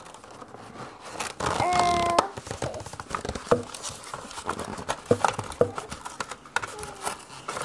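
Packaging being handled as a plastic art desk case is opened: crinkling and rustling with scattered clicks and light knocks of plastic. A louder patch about a second and a half in carries a brief steady tone lasting about half a second.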